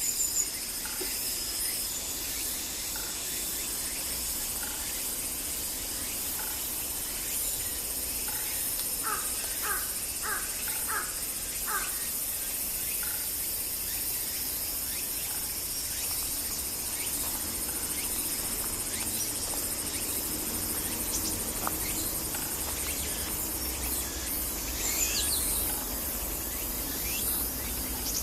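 Crow cawing: a run of about six short caws in quick succession partway through, with fainter scattered caws around it, which the uploader takes for an earthquake-warning call. Insects drone steadily behind.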